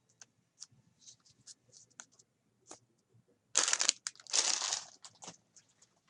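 Light clicks and crinkles of trading cards and packaging being handled, then two loud tearing rasps of about half a second each a little past halfway: a card pack's wrapper being torn open.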